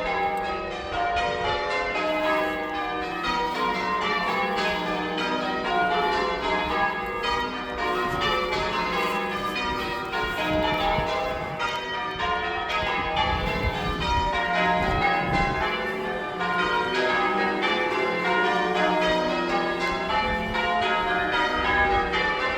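Chichester Cathedral's bells ringing a continuous peal, many bells striking one after another at a steady level.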